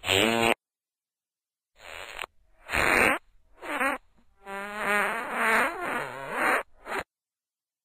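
A string of about six separate farts, short blasts with a pitched buzz, the longest drawn out for about two seconds with a wavering pitch.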